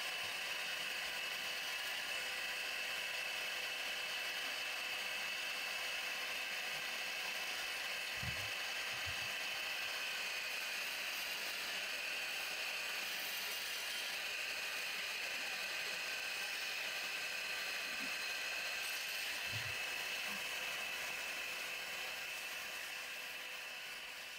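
Wood lathe running with a steady hum from its drive while a hand-held chisel cuts into the spinning wooden blank, a continuous hissing scrape of wood being turned into shavings. A few soft knocks come through, and the sound fades out near the end.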